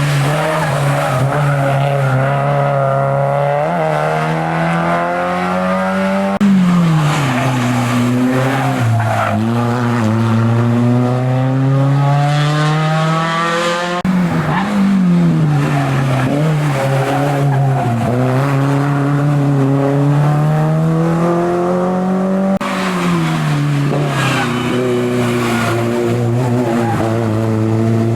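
Hill-climb race car engine run hard, its pitch climbing steadily and then dropping sharply again and again as it shifts through the gears, with lifts and downshifts in between.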